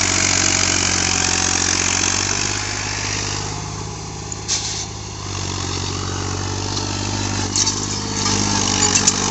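Diesel engine of an Eicher 551 tractor running steadily while it strains to haul a loaded sand trolley. The engine sound drops off a little about three and a half seconds in and comes back up about a second and a half later. A few short clicks come near the end.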